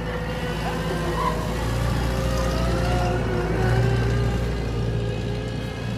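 Electric regional express train pulling away, a low rumble with a motor whine that slowly rises in pitch, growing louder to about four seconds in and then easing.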